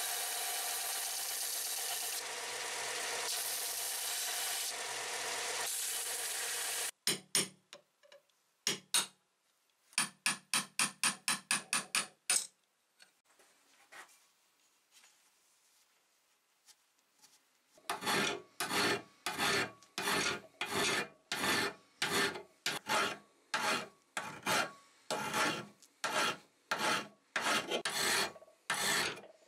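Bench belt sander running with a steel piece held against the belt, grinding steadily, until it stops about seven seconds in. Then hand filing of steel in a vise: a few scattered strokes, a quick run of file strokes, a quiet pause, and from about eighteen seconds on, steady file strokes about two a second.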